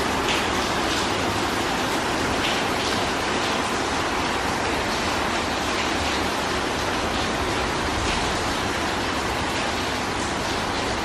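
Steady rain falling, with a few separate louder drops landing every second or two.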